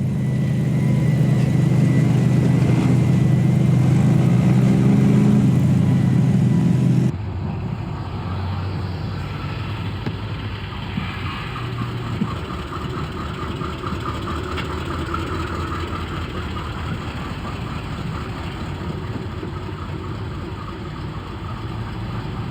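Off-road rock crawler's engine running at low, crawling revs. It is loud and close for the first seven seconds, then cuts abruptly to a quieter take of the engine, with a couple of sharp knocks near the middle.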